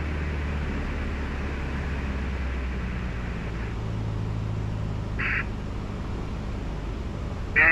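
Cessna 150's four-cylinder engine and propeller droning in the cockpit with the throttle at idle for a simulated engine failure; the pitch of the drone shifts a few seconds in. A short high-pitched sound comes about five seconds in, and a louder pitched sound starts right at the end.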